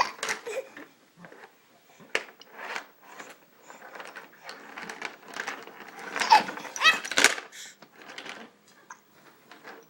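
Baby hiccuping and making excited squeals, among irregular knocks and clattering; a run of louder, higher squeals comes about six to seven seconds in.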